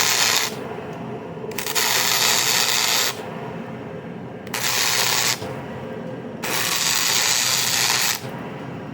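Flux-core wire welder arc crackling in four bursts: the first stops about half a second in, then three more come, each a second or so long, with short pauses between. The welder is laying beads onto a snapped bolt to build it up.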